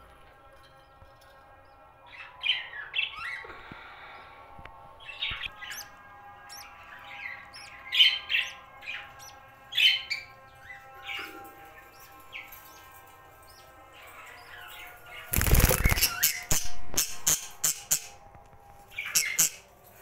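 Budgerigars chirping in short bursts. About fifteen seconds in there is a loud rustling burst, followed by a few sharp clicks and scrapes.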